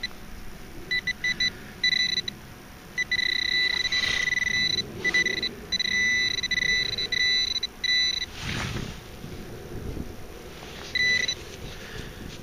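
Metal detector sounding one steady high beep in broken pulses of varying length as it passes over a deep zinc coin in the dug hole. There is a brief scrape of soil around two-thirds through, and one more short beep near the end.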